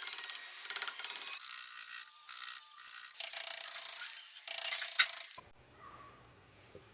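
A hand tool scraping and rubbing on wood. It starts with short groups of quick strokes, moves to longer scratchy passes, and stops about five seconds in.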